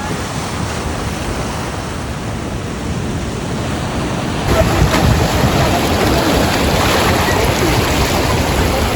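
Ocean surf washing onto the beach, with wind buffeting the microphone. The sound steps up and gets louder about four and a half seconds in.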